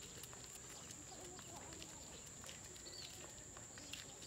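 Quiet rural outdoor ambience: a steady high-pitched whine, one short bird chirp about three seconds in, and faint scattered ticks.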